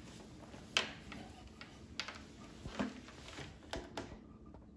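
Faint handling noise: a few soft knocks and clicks as a nylon-string acoustic guitar is picked up and settled into playing position, with near quiet in between.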